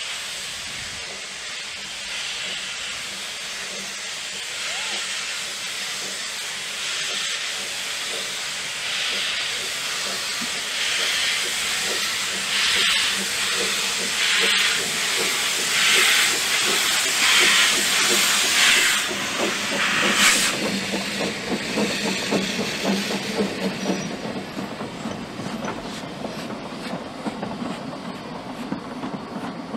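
Narrow-gauge steam tank locomotive No. 190 Lyd pulling away past with its train: steam hiss, then slow exhaust beats about one every second and a half, growing louder and peaking as the engine passes about 20 seconds in. After that the coaches roll by, their wheels clicking rhythmically on the rails.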